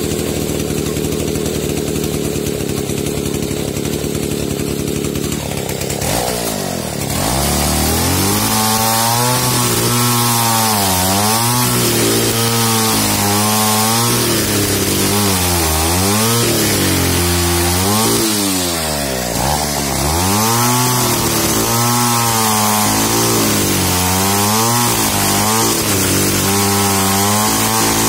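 Old petrol chainsaw idling for about six seconds, then revved up and sawing through logs, its engine note repeatedly sagging under load and climbing back.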